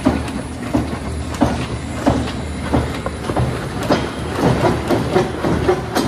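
Worm-casting sifting machine with a wooden frame and slatted screen running: a steady low mechanical hum under continuous irregular rattling and knocking as castings tumble through it.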